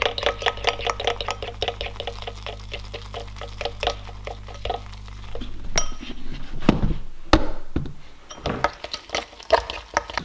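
A metal spoon stirring rye flour and water in a glass bowl, clinking and scraping against the glass in a quick, even rhythm, for about the first five seconds. After that come irregular knocks and low handling noise.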